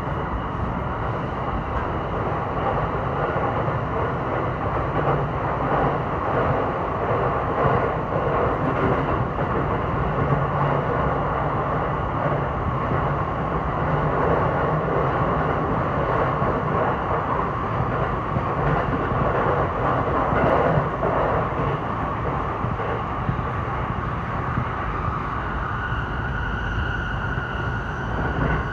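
JR Saikyo Line electric commuter train running at speed, heard from inside the car: a steady rumble of wheels on the track. A faint high whine comes in near the end.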